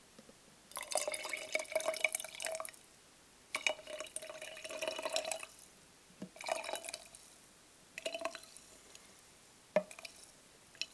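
The last of a drink being poured into cups in four goes: two pours of about two seconds each, then two short ones that trail off to a trickle. A few small clicks near the end.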